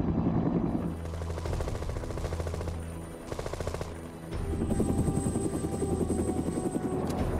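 Bell UH-1 Huey helicopter in flight, with rapid machine-gun fire from a helicopter-mounted gun over it.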